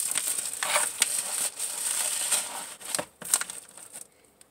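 Plastic packaging crinkling and rustling as a padded mailer is handled and a clear plastic bag is pulled from it. It runs continuously for about three seconds, then breaks into a few separate crinkles and quietens near the end.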